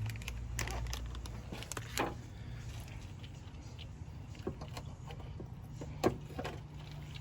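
Scattered clicks and knocks from hands handling parts on a car, over a steady low hum; a sharp knock about six seconds in is the loudest.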